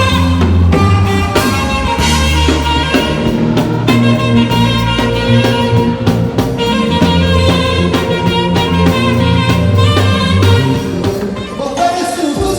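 Instrumental Afrobeat-style music with a steady drum beat, a heavy bass line and horn-like melodic lines.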